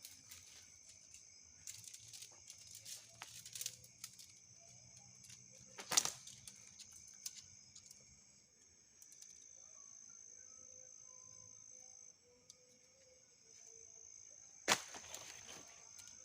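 Steady high-pitched chorus of forest insects, with scattered knocks and rustles; the loudest is a single sharp knock about six seconds in, and a burst of rustling comes near the end.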